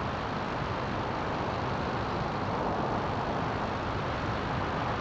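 CGS Hawk ultralight aircraft's engine and propeller with wind rushing past the microphone: a steady, even drone that does not change.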